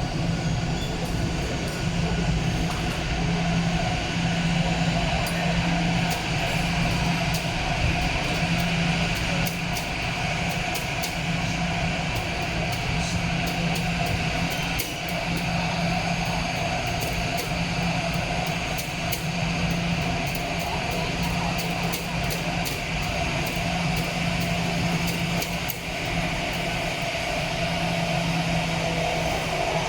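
A steady mechanical drone, holding a constant low hum and a higher whine without change, with faint scattered clicks.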